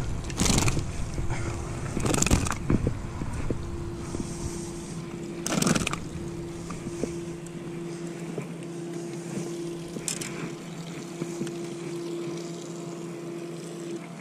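Short rustles and knocks of a fish and gear being handled on a grassy bank, with a low wind rumble on the microphone that dies away about halfway through. Under them a steady low motor-like hum runs on.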